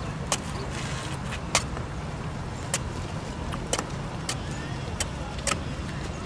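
Machete chopping into a green coconut: about seven sharp, separate chops, roughly one a second and not evenly spaced, over a steady low rumble of road traffic.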